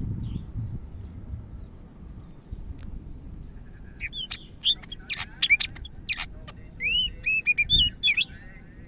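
Cucak ijo (leafbird) singing: faint scattered chirps, then about four seconds in a loud burst of rapid whistled notes and sweeping chirps that stops shortly before the end.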